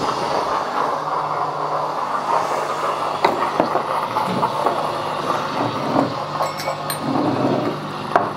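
Solis Barista Perfetta Plus espresso machine cooling its boiler down after being switched from steam mode back to coffee mode: a steady hum with hissing as steam vents off. A few light clinks of glassware are heard about three seconds in and again near the end.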